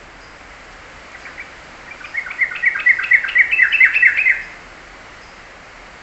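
A caged songbird sings one short, quick burst of chirping notes. It starts faintly about a second in, runs loud for two seconds or so, and stops near the middle.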